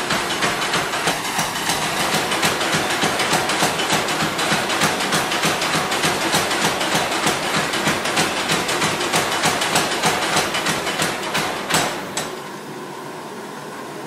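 Mechanical power hammer pounding a red-hot steel knife blank on its anvil in rapid, evenly spaced blows. It stops suddenly about twelve seconds in, leaving a steady, quieter whooshing noise.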